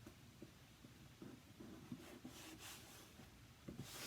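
Near silence with faint rubbing and a few light taps: fingers pressing an adhesive stencil flat onto a painted sign so that no chalk paste can creep underneath.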